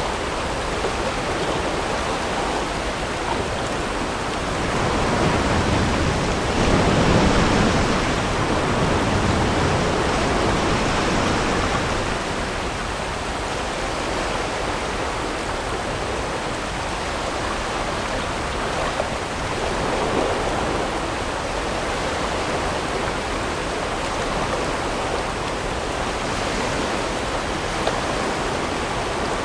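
Whitewater rapids rushing, a steady noise of churning river water that swells louder for several seconds soon after the start, then settles back.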